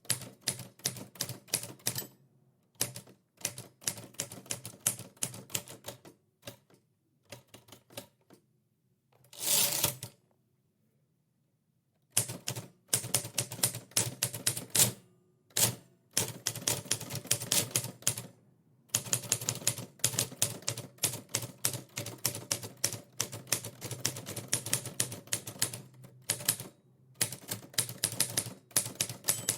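Typewriter keys struck in quick runs of sharp clicks, with short pauses between runs. About nine and a half seconds in there is one longer noisy sound, followed by a gap of about two seconds.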